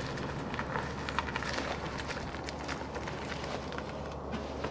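Mitsubishi i-MiEV electric car creeping forward at walking pace, its tyres crackling and popping over dry fallen leaves and grit. No motor whine can be picked out.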